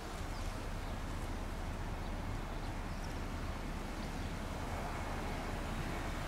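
Steady low wind rumble on the microphone mixed with the distant jet noise of an Airbus A320neo-family airliner on final approach. A faint high engine whine creeps in near the end.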